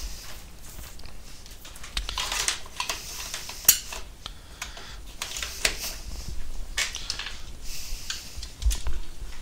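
Power cables and a small PoE power injector being handled and set down on a wooden desk: rustling with scattered clicks and knocks, and one sharp click nearly four seconds in.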